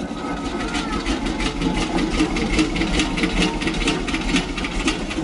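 Steady mechanical running with a rhythmic clatter of about four to five beats a second over a low rumble, like an old machine at work.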